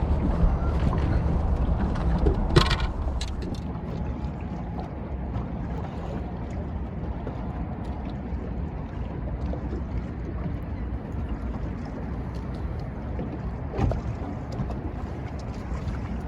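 Steady low rumble and wind buffeting the microphone aboard a small fishing boat on the river, with two sharp knocks, one about three seconds in and one near the end.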